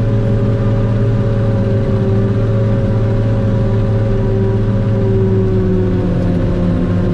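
Tractor engine running steadily under load while a forage harvester chops corn, with a steady machine whine above the engine that sags slightly in pitch about midway.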